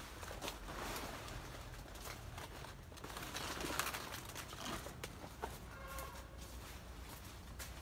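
Rustling and light movement among plants, with one short pitched bird call about six seconds in.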